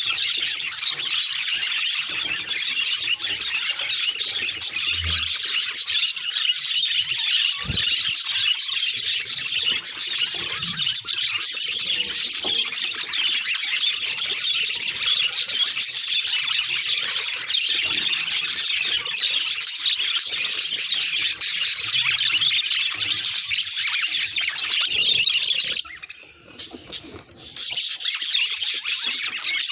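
Budgerigars chattering and warbling continuously in a dense stream of chirps and squeaks, breaking off briefly near the end.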